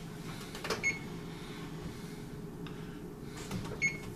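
Oven control-panel keys beeping as the oven is set to preheat: two short high beeps about three seconds apart, over a low steady hum.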